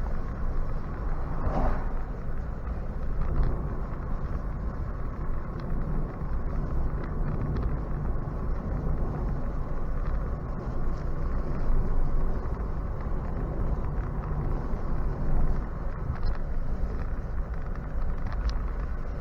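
Steady road and tyre noise with a low rumble from a moving Nissan Leaf electric car.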